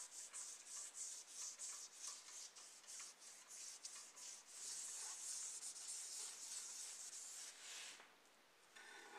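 Small sanding pad rubbed in quick back-and-forth strokes over the painted plastic body of a scale model car, about three strokes a second. About halfway through it becomes a faster, continuous rub, and it drops away near the end.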